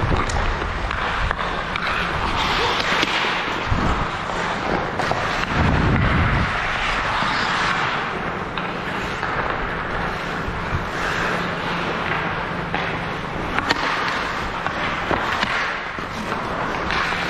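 Ice hockey play: skate blades scraping the ice continuously, with scattered sharp clacks of sticks and puck, and a heavier thud about six seconds in.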